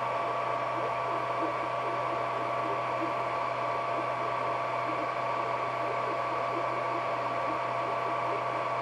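Creality Ender 3D printer running a print: steady fan noise with a constant whine from the stepper motors and small irregular ticks as the head moves.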